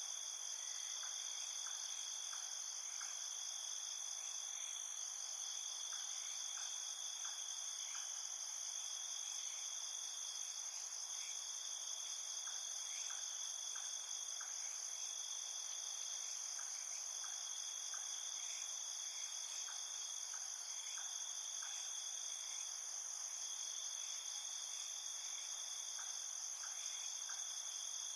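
Chorus of night insects trilling steadily, several high pitches layered on top of each other. Faint short clicking chirps come and go in small runs of a few.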